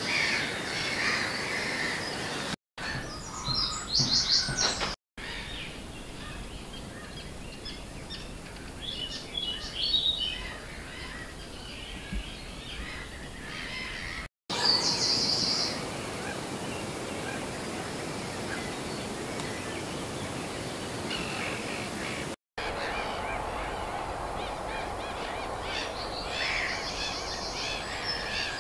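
Wild birds calling and chirping over a steady background hiss, with a few fast, high trills standing out. The sound drops out abruptly four times, in short gaps between takes.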